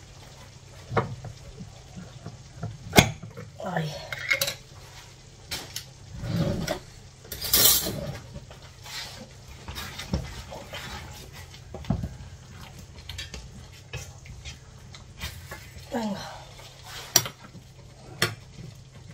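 Kitchen handling noise while a container of olives is opened and the olives are dished out onto a salad: a scattered series of sharp clicks and knocks of utensils, lid and dishes. A brief exclamation ("ay") comes about four seconds in.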